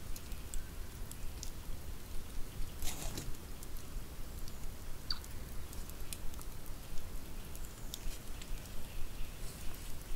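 Wood campfire crackling, with irregular sharp pops and snaps and a denser burst of crackle about three seconds in, over a steady low rumble.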